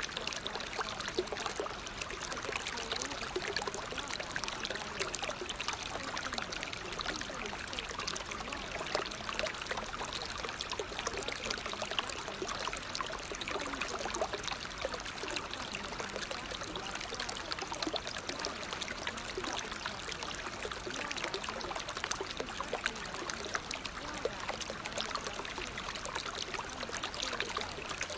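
Steady, even sound of running water like a flowing stream, unchanging throughout, serving as the background bed of a subliminal-affirmation audio track.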